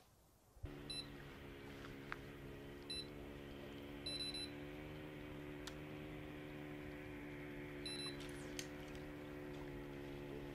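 Electronic carp bite alarm giving short high beeps: single beeps about 1 and 3 seconds in, a quick run of beeps around 4 seconds, and another near 8 seconds, signalling line being taken. Under it a faint steady low hum.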